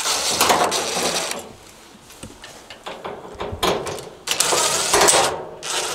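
Power screwdriver running in several short bursts, backing out the screws that hold a dryer's panel.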